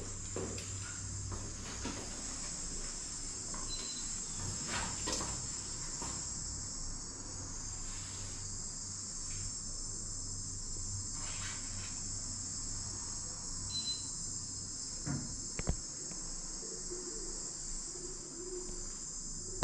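Insects such as crickets chirring in a steady, high, continuous drone, with a few faint knocks.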